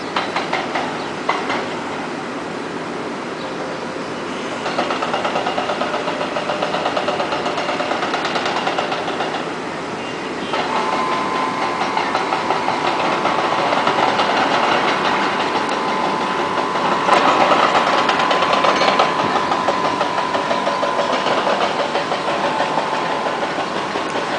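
Construction machinery engines running continuously, with a steady whine joining about ten seconds in.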